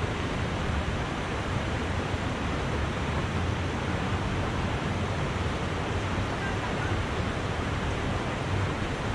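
Steady rushing of a fast, shallow river flowing over rocks, with a low flickering rumble of wind on the microphone.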